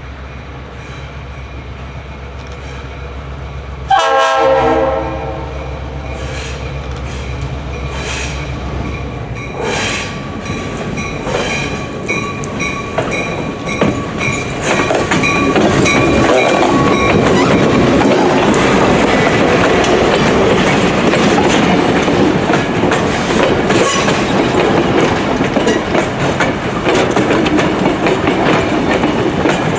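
A single short blast, about a second long, from the RS3L air horn on a GP38 diesel locomotive, about four seconds in. The train then rolls past, its wheels clicking over rail joints, and the rolling noise grows louder from about ten seconds in.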